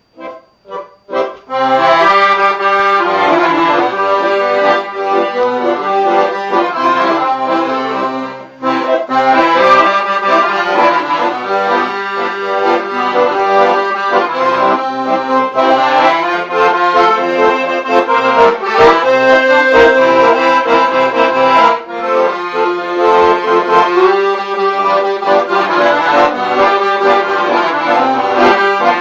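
Background music: an accordion-led traditional tune that starts after a moment's silence with a few short notes, then plays on fully.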